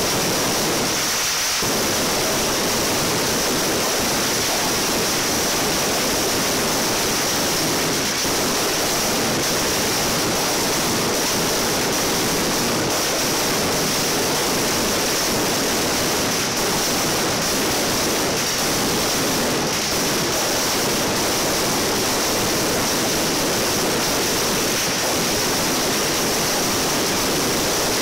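Ground firecrackers of a hand-lit mascletà going off in a continuous barrage. So many explode at once that the bangs run together into one steady, unbroken noise.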